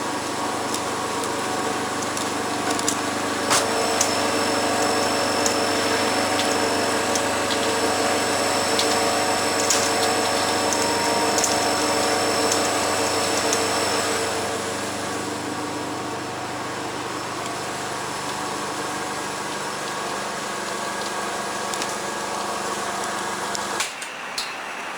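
Gas pipeline reconstruction machinery running loudly and steadily: a machine hum with several steady tones and scattered clicks and knocks. It eases slightly about halfway through and changes abruptly near the end.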